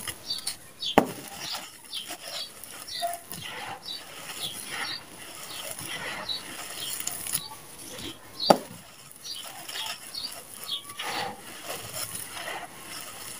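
Hands scooping and crumbling dry, gritty red sand-cement with small stones, the grit crunching and pattering as handfuls fall. Two sharp knocks stand out, about a second in and about eight and a half seconds in.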